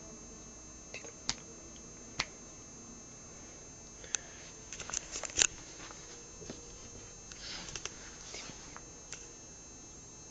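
Scattered light clicks and taps, clustered about five seconds in, and a brief rustle of bedding a couple of seconds later, over a steady hiss: handling noise as the camera is moved over the bed.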